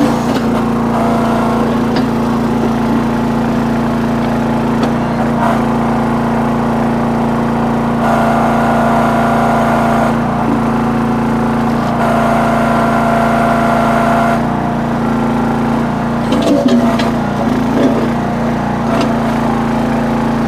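Towable backhoe's small engine running steadily while digging. A higher whine rises over the engine twice for a couple of seconds as the hydraulics take load, and a few knocks and scrapes of the bucket in rocky ground come near the end.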